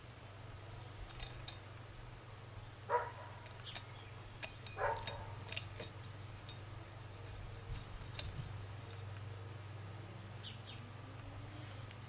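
Faint clicks and scrapes of a glazed pottery birdhouse being handled and fitted onto a screw in a tree trunk, with two short falling squeaks about three and five seconds in. A steady low hum runs underneath.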